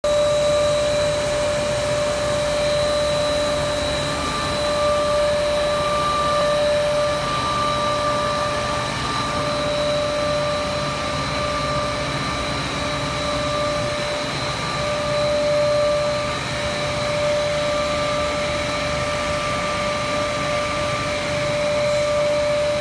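PVC wall panel extrusion line running: a steady machine hum with a constant high-pitched whine over it.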